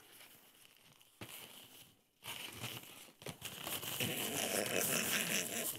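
Crinkly rustling and wet chewing noises close to a clip-on microphone while a bite of vegan 'pork belly' is eaten, faint at first and growing louder from about two seconds in.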